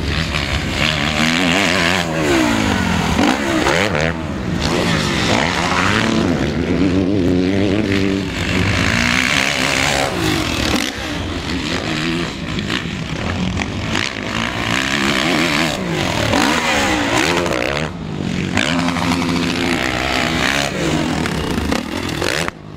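Motocross bike engines running and being revved, the pitch rising and falling again and again.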